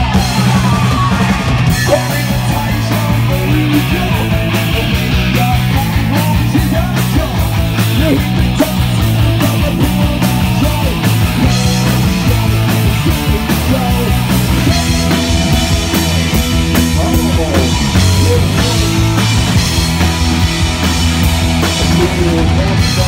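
Live punk rock band playing loud and fast: distorted electric guitars, bass and a drum kit, with a singer shouting into the microphone.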